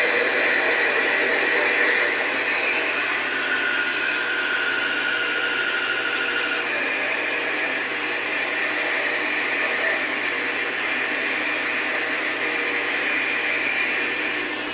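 Metal lathe running with a drill bit in the tailstock boring into the end of a spinning metal bar: a steady cutting and rubbing noise with a thin whining tone that shifts in pitch. The hiss at the top drops away abruptly about seven seconds in.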